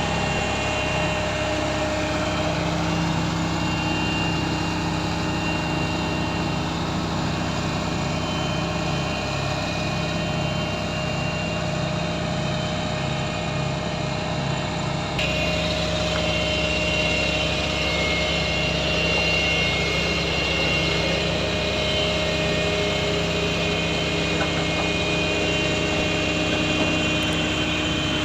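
Diesel engine of heavy earthmoving machinery running steadily, with a pulsing low engine note; the sound changes abruptly about halfway through.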